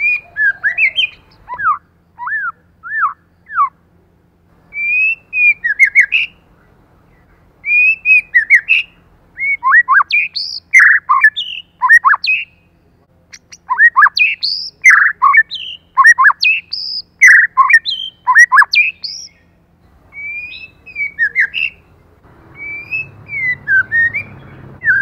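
White-rumped shama singing: bursts of loud, clear whistled phrases full of quick downward-sweeping notes, separated by short pauses.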